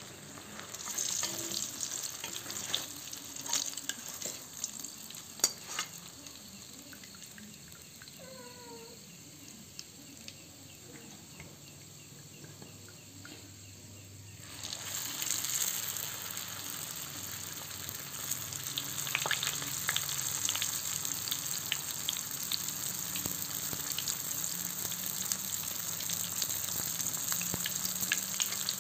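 Banana-filled spring rolls deep-frying in hot oil in a wok, with a metal spatula clicking and scraping against the wok in the first few seconds. About halfway the sizzling suddenly grows louder as fresh rolls go into the oil, and it stays strong from then on.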